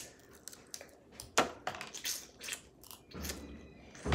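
Close-mic eating of crab clusters: a few sharp smacks and cracks of shell and lips as crab meat is pulled from the leg and chewed. A dull low bump near the end.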